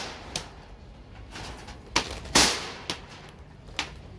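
Irregular sharp bangs and knocks from demolition work, one loud bang with a short ringing tail about two and a half seconds in and several smaller knocks around it.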